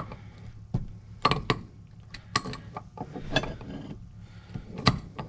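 Rusty steel parts of an Armstrong pipe threader being handled and taken apart: a string of irregular, sharp metallic clicks and clinks, the loudest near the end.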